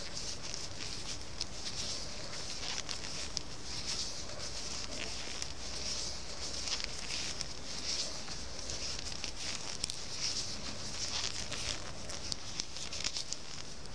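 Circular knitting needles clicking softly and wool yarn rubbing as stitches are purled by hand: small irregular ticks over a steady hiss.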